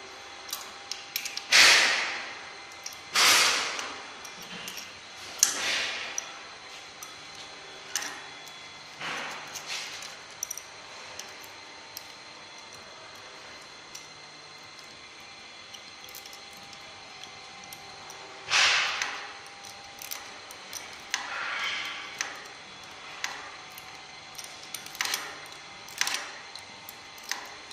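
Clicks and short scraping noises from hands adjusting and handling the metal housing of a wall-mounted laser positioning lamp, with a few louder rasps, the loudest about two and three seconds in and again near the middle.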